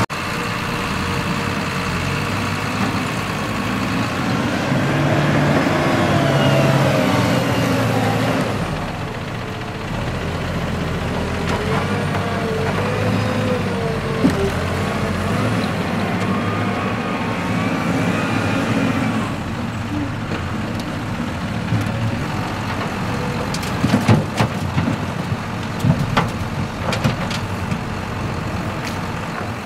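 Diesel engines of a Cat telehandler and a John Deere tractor running hard while manure is loaded into a spreader. The engine pitch rises and falls as the loader lifts and swings, and a few sharp knocks and clanks of the grab and spreader come near the end.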